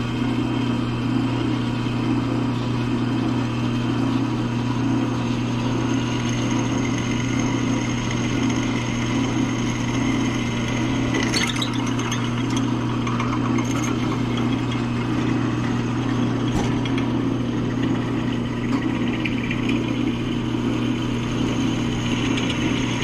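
Drill press motor running with a steady hum while a 5/16-inch bit drills through an aluminum tube, with a few brief high scratchy sounds about halfway through as the bit cuts.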